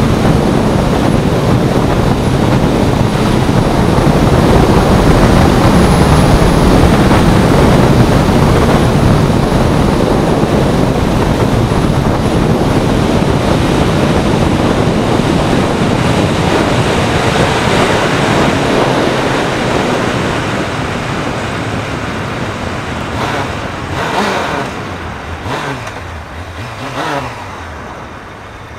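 Honda CBR600F3 inline-four sport bike riding at speed: a loud, steady rush of wind over the microphone with the engine running underneath. In the last third it eases off and quietens as the bike slows, with a few short rises and falls in engine pitch near the end.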